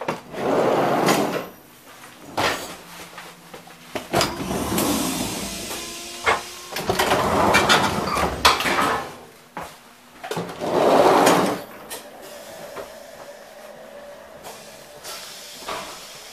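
Automatic sliding doors between passenger coaches opening and closing, each with a rushing swish a second or two long, about four times, with short clicks and knocks in between.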